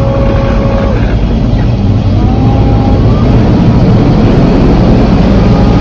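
Bucket truck being driven, its engine and road noise heard from inside the cab as a loud, steady drone.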